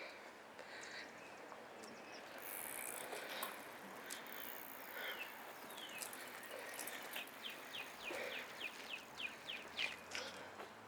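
Songbirds chirping over a steady outdoor background hum, with a quick run of short falling notes, about four a second, in the second half.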